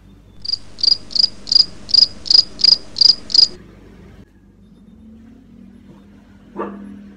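Digital fever thermometer beeping nine times in quick succession, about three high-pitched beeps a second, the signal that the temperature reading is finished. A short soft thump follows near the end.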